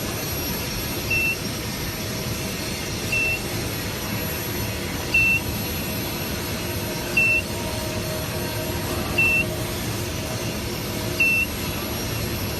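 An electronic beeper sounding a short single-pitch beep every two seconds, six times, over steady low background noise.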